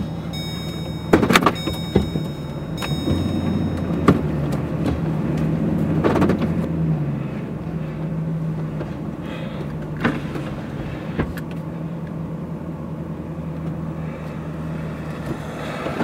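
A vehicle's engine running, heard from inside the cab as it drives slowly, with its hum shifting in pitch for a few seconds. Several sharp knocks and rattles sound over it.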